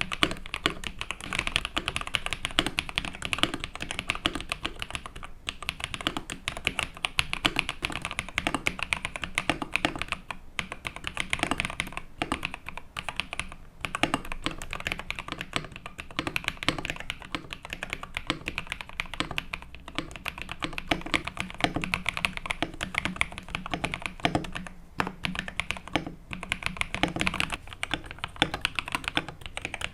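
Fast, continuous typing on a modded KBD67 Lite mechanical keyboard in an ABS plastic case: a dense stream of key clacks, with a few brief pauses.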